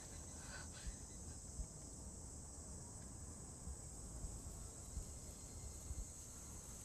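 Faint, steady, high-pitched chirring of an insect chorus, with a few soft ticks under it.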